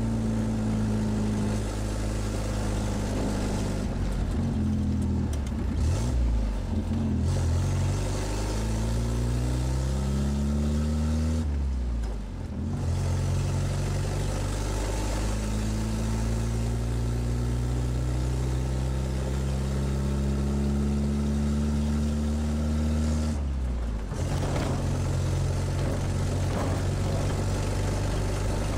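The 1957 Škoda 440 Spartak's four-cylinder engine running under load while driving, heard from inside the cabin. The engine note climbs, falls back sharply about 12 seconds in, holds steady, then drops off again about 24 seconds in, after which the sound turns rougher and noisier.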